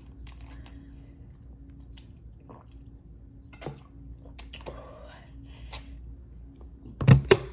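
Close-up eating sounds: soft wet chewing and small food-handling clicks and squishes over a steady low hum, with a quick pair of loud thumps near the end.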